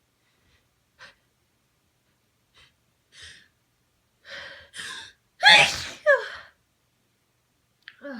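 A person's sneeze, induced by tickling the nose with rolled-up tissue. A few short sniffs and catching, gasping in-breaths build up, then a loud, forceful sneeze comes a little past halfway, in two quick bursts.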